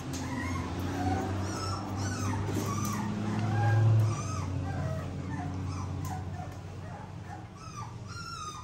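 Four-week-old XL pitbull puppies whimpering and squealing in many short high-pitched cries while being handled and given a paste dewormer by syringe. A low steady hum runs underneath, loudest about four seconds in.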